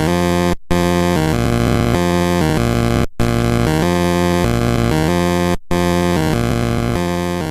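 Loud background music: a repeating phrase about two and a half seconds long, broken by a brief gap after each repeat, beginning to fade near the end.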